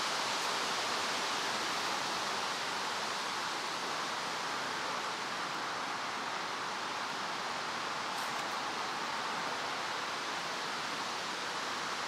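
Steady outdoor rushing noise, even and unbroken, with a few faint high ticks about eight seconds in.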